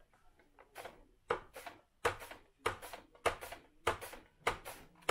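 Whole onion being pushed back and forth across the blade of a Mueller adjustable mandoline slicer, each pass a short slicing scrape. The strokes come at a steady rhythm, about one every half second or so, starting faint about a second in.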